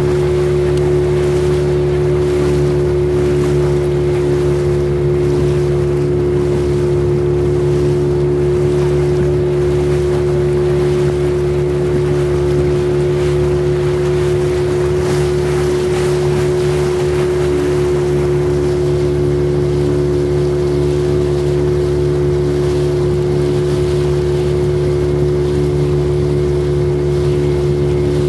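Motor boat engine running steadily at cruising speed, one constant droning pitch that does not change, with water rushing along the hull.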